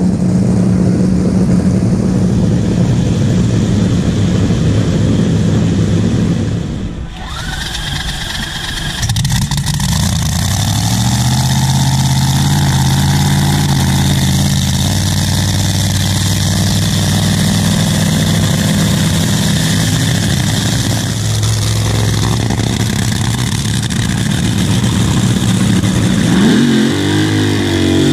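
Top Fuel dragster engines, supercharged nitromethane-burning V8s, running loudly at idle. The sound dips about seven seconds in, then an engine picks up again and runs steadily.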